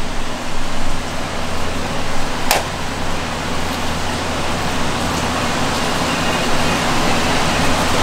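Steady machine noise, an even rushing hiss over a low hum, with one short sharp click about two and a half seconds in.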